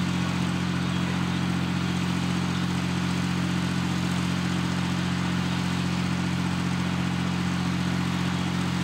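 An engine running steadily at an unchanging speed: a low hum with a few steady tones and a hiss over it, with no rise or fall.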